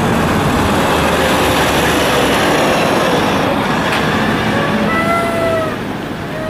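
Heavy-haul truck with a loaded lowboy trailer driving past: a steady, loud mix of diesel engine and tyre-on-road noise, easing slightly near the end.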